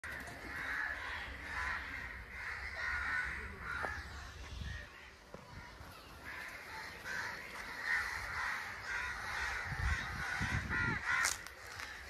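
Crows cawing over and over, the calls following closely on one another, with a short lull about five seconds in.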